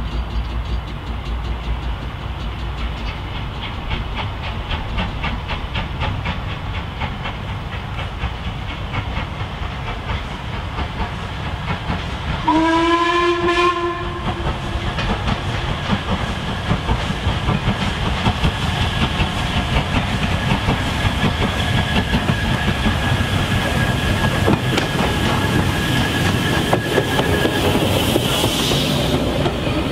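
Steam locomotive hauling a passenger train, its exhaust beating in a steady rhythm as it approaches. It sounds its steam whistle once, for about a second and a half, about halfway through. Near the end the coaches pass close by, rumbling and clattering over the rail joints.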